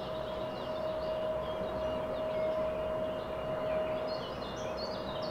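Distant Lockheed P-3C Orion's four Allison T56 turboprops running steadily with an even tone as the aircraft rolls out on the runway after landing. Birds chirp over it, most busily near the end.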